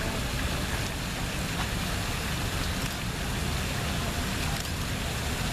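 Steady splashing hiss of water falling from a tiered fountain's upper basin into the pool below, with a low rumble beneath it.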